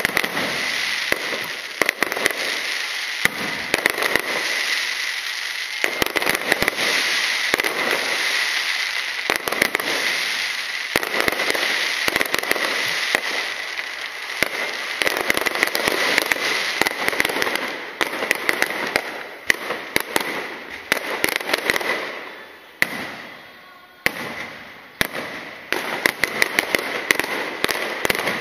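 Aerial fireworks display: shells bursting overhead with sharp bangs over a dense, continuous crackling. The barrage thins out briefly about three-quarters of the way through, then the bangs pick up again.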